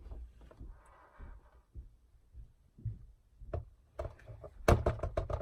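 Sweet cream mix poured into the ice-cream maker's plastic bowl, a faint splashing about a second in, followed by sharp plastic clicks and knocks near the end as the maker's parts are handled.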